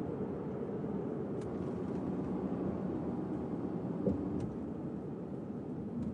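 Steady road and engine noise inside a moving car's cabin, with a few faint clicks.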